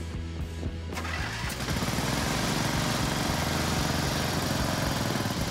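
Small gasoline engine of a kid-sized mini rollback truck cranking and trying to start about a second in, with background music. It won't keep running because the tank is out of gas.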